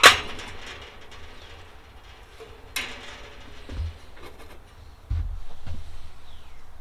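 Metal clanks and knocks from handling a Kero-Sun Omni 85 kerosene heater. A sharp ringing clank comes at the start and another about three seconds in. Duller knocks and low rumbling handling noise follow.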